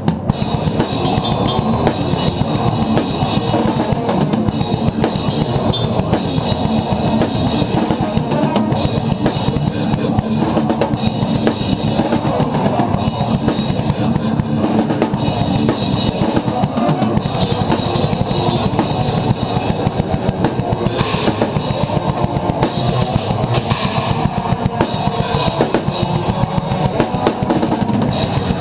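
Drum kit played along with a progressive metal band track, with continuous bass drum and cymbal strikes over the full band.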